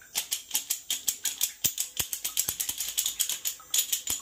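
Flint striker snapped again and again at a hose-fed soldering torch tip: a quick, irregular run of sharp clicks with no flame catching. The torch is failing to light, which the plumber fears is an empty gas tank.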